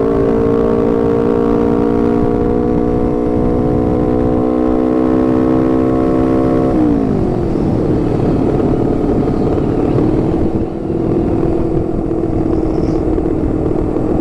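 Honda CBR250RR with an R9 GP racing exhaust running at steady revs with a droning note; about seven seconds in its pitch drops abruptly, then it carries on steadily at lower revs.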